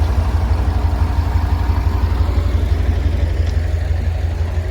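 Diesel engine of a truck-mounted crane running steadily, a low pulsing rumble, while the crane handles a heavy load.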